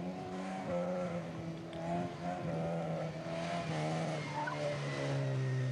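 Fiat Uno race car's engine revving up and down as it is driven hard through a cone slalom, with its tyres squealing briefly about four seconds in.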